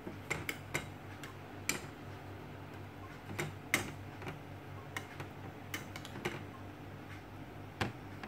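Metal spoon clicking against a plate while scooping mashed food: about a dozen light, irregular clicks.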